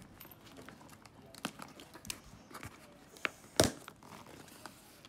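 Scissors slitting packing tape on a cardboard shipping box, then the cardboard flaps being pulled open, with scattered crinkles and clicks. The loudest is a sharp click or knock about three and a half seconds in.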